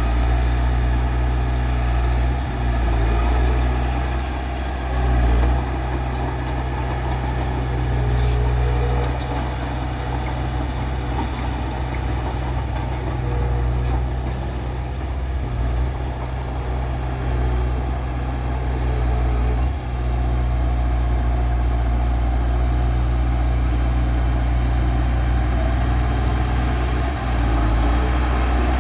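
Heavy diesel machinery engine running steadily with a deep rumble, swelling in loudness now and then.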